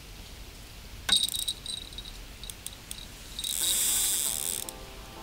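Homemade bite indicator on a bottom fishing rod going off: a sharp click and a high stuttering ringing about a second in, then a louder high rattling for about a second past the middle, signalling a bite. Music begins underneath near the end.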